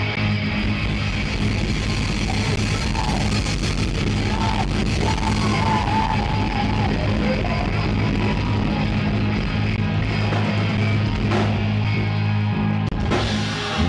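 Live rock band playing loud: electric guitars and bass hold a sustained chord over drums, with a voice yelling over it. A sharp hit comes near the end.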